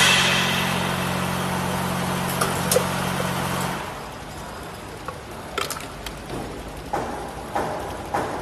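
Scoop feeding machine running with a steady hum that cuts off suddenly about four seconds in, followed by a few light clicks.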